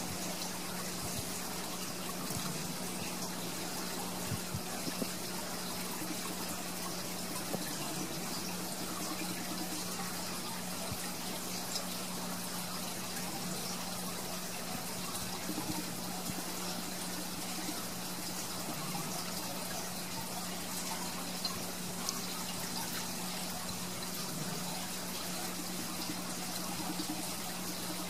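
Aquarium filtration running: a steady trickle and splash of moving water with a steady low pump hum underneath.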